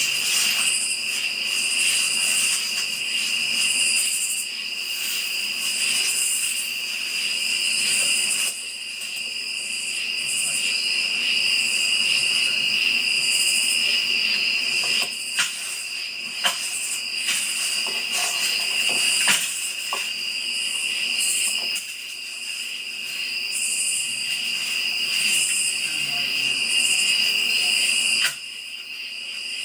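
Chorus of night insects: a steady high-pitched drone with a higher trill pulsing roughly every second, and a few sharp clicks around the middle.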